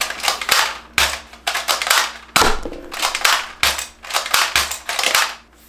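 A quick, irregular run of sharp, shot-like cracks, well over a dozen, each with a short ringing tail, some with a dull thump under them.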